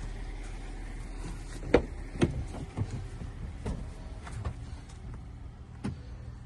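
Steady low hum inside a car, with a series of clicks and knocks from handling things in the cabin; the sharpest knock comes about two seconds in.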